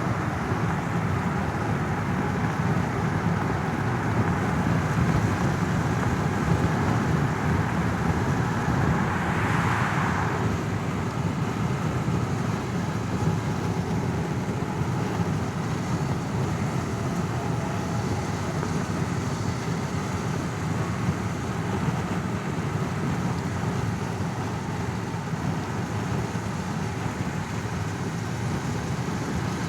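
Car cabin ambience: a steady low rumble of engine and road noise heard from inside a car, with a brighter hiss that is stronger for the first ten seconds or so and then eases off.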